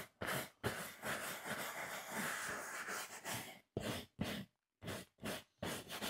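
Applicator pad rubbing over cracked leather sofa upholstery in quick back-and-forth strokes, giving the newly applied colour a light buff. The rubbing is steady at first, then breaks into shorter strokes with a couple of brief pauses a little past the middle.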